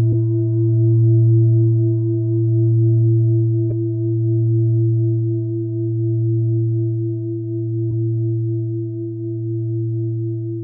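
Singing bowl ringing: a low sustained hum with fainter higher overtones that pulses in slow swells about every couple of seconds and slowly dies down. A few faint ticks sound over it.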